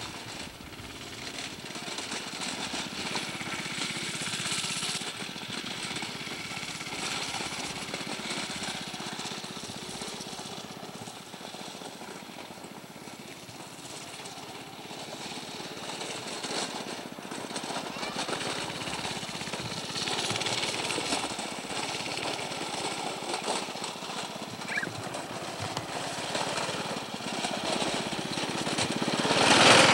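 A go-kart's small engine running as the kart laps a dirt track, rising and falling as it moves around the course and getting louder near the end as it comes toward the camera.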